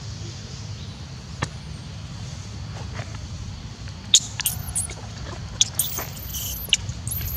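Infant macaque crying out in a run of short, very high-pitched squeals, starting about halfway through and repeating to the end, over a steady low rumble.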